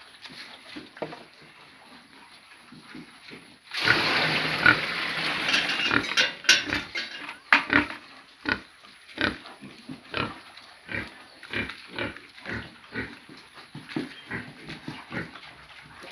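Pigs in a pen: a loud, harsh burst of squealing starts about four seconds in and lasts a couple of seconds, followed by a steady run of short grunts at about two a second.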